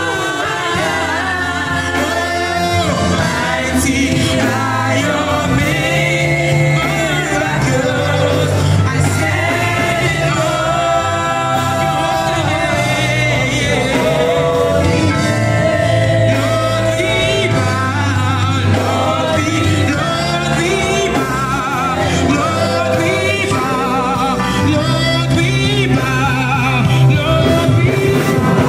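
Live gospel worship song: several singers on microphones singing together, backed by a band with keyboard, carrying on without a break.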